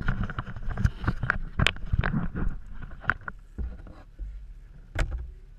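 A quick run of knocks and clatter close to the microphone in a canoe, then one more sharp knock about five seconds in, over a steady low wind rumble.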